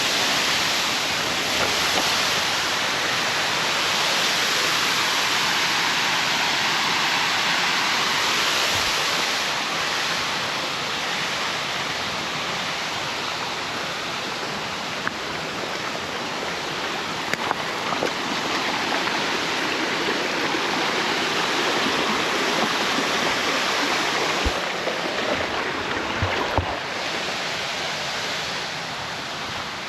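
Waterfall: a steady, unbroken rush of falling water, with a few faint knocks in the second half.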